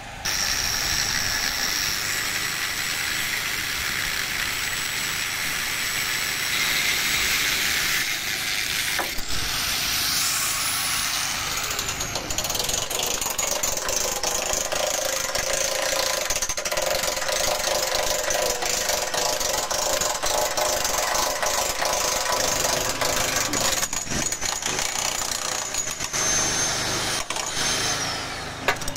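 Electric demolition hammer chiselling at the bolted joints of rusted steel mine-gallery arches, a fast continuous hammering, over a portable generator running. The hammering stops near the end.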